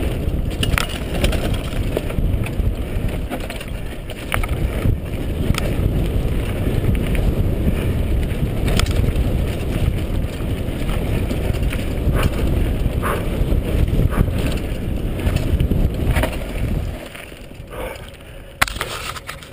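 Mountain bike descending a dirt singletrack, heard from a handlebar-mounted camera: tyres rumbling on the dirt with wind on the microphone and frequent sharp rattles and knocks from the bike over bumps. The rumble drops off about three seconds before the end as the bike slows.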